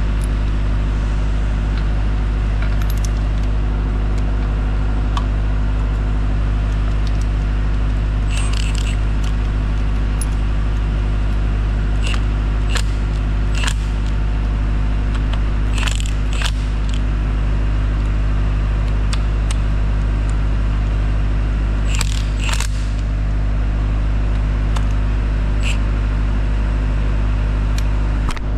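Scattered metal-on-metal clinks and short rattles from wrenches and fittings being worked on a Detroit Diesel 4-71 cylinder head, a few coming in quick pairs, over a loud, steady low hum.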